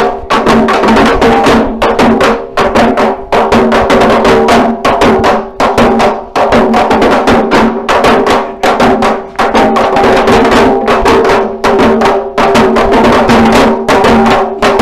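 Parai frame drums beaten with sticks in a fast, driving rhythm of dense, sharp strokes.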